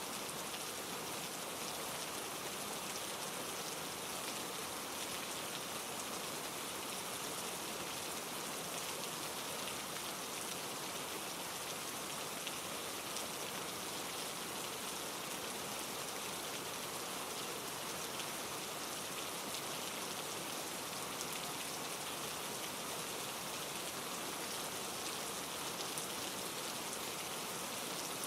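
Steady rain pattering, blended with a mountain stream tumbling over granite rocks.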